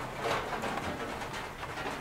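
Rain falling, with drops tapping irregularly on a window, and a bird calling in a low voice beneath it.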